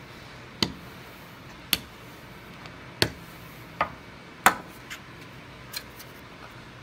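Wooden rolling pin knocking sharply against the countertop about seven times at uneven intervals while rolling out pie dough, the loudest knocks a few seconds in.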